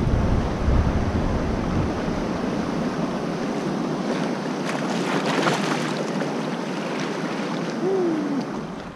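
River rapids rushing: a steady roar of whitewater pouring over rock ledges.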